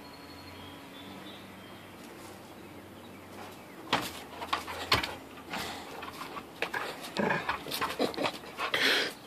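Brittany Spaniel jumping and snapping at a bumblebee: from about four seconds in, an irregular run of sharp jaw snaps and short breathy huffs that gets busier near the end. A bumblebee's faint buzz comes before it.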